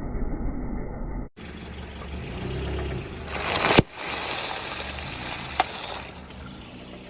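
Car engine running as the car rolls slowly over an object. After a sudden cut just over a second in, the noise swells and ends in a sharp crack as the object is crushed under a tyre. A smaller click follows about two seconds later.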